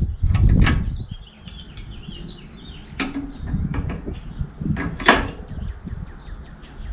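Handling noise from metal mower-deck pulleys and parts: a low clatter in the first second, then sharp knocks about three and five seconds in.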